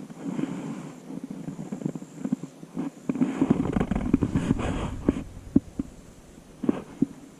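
Close handling noise of a light spinning rod and reel while a hooked fish is being reeled in: irregular clicks and knocks, with a low rumble between about three and six seconds in.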